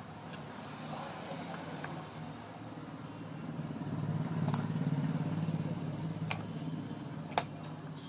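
A low engine hum swells to its loudest about halfway through and then fades. A few sharp clicks come in the second half as the amplifier circuit board is handled.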